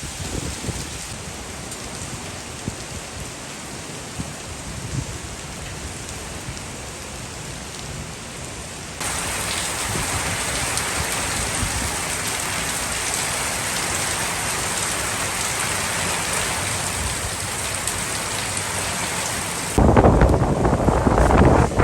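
Heavy typhoon rain pouring down steadily. About nine seconds in it turns abruptly louder and hissier, and near the end a louder, rumbling rush of wind buffets the microphone.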